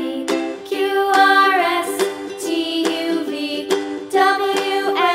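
Background music: plucked-string chords in an even rhythm with a melody on top.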